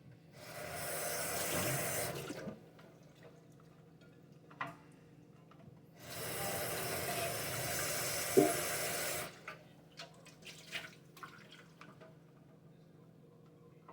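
Two bursts of steady rushing, hissing noise, the first about two seconds long and the second about three, with a sharp click during the second burst and a few lighter clicks after it.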